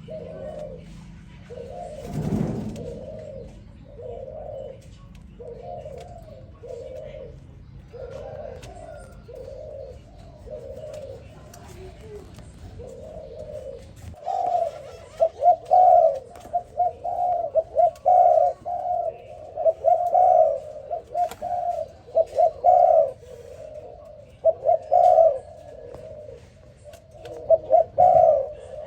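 Spotted dove cooing in repeated phrases, fainter at first and much louder from about halfway on. A brief thud about two seconds in.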